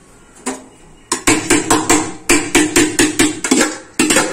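Spoon knocking and scraping inside a tilted metal pot to get the last drained rice out, in quick repeated ringing strikes about four or five a second. The strikes start about a second in and pause briefly near the end.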